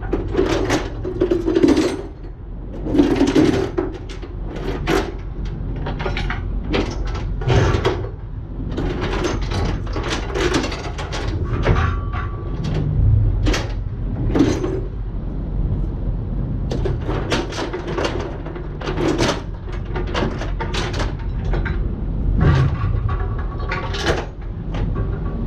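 Irregular knocks and clanks of hand work on a steel log bunk resting on a flatbed trailer's wooden deck, over a steady low rumble.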